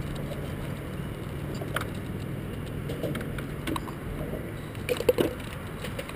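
Scattered knocks and rubbing from a GoPro taped to a walking dog's back, over a faint low hum, with a quick cluster of louder knocks about five seconds in.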